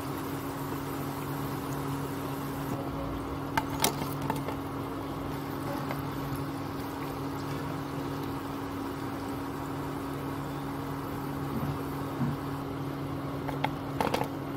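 Chana dal vadas deep-frying in hot oil, a steady sizzle over a low hum, with a few sharp clicks of a metal slotted spatula against the pan about four seconds in and again near the end.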